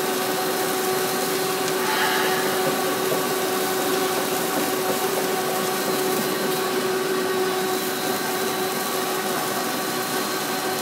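Snack food extruder running steadily while extruding puffed corn snacks: a continuous mechanical hum with a constant tone through it.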